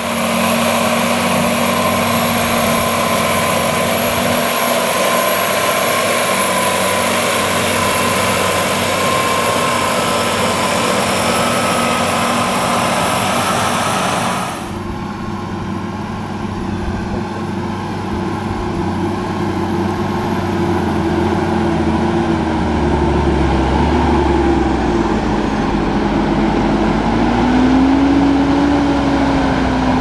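New Holland T8.360's FPT Cursor 9 six-cylinder diesel engine running steadily under load while pulling a reversible plough. About halfway through the sound cuts to a more distant take of the tractor, which grows steadily louder as it comes closer, and its engine note rises near the end.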